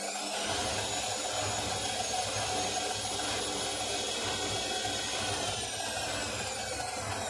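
Indesit mini washing machine on its spin cycle. The motor's high whine rises in the first second, holds steady, then eases down slightly near the end, over a rumbling low drone from the drum. The machine is running with bad bearings and an unbalanced spin.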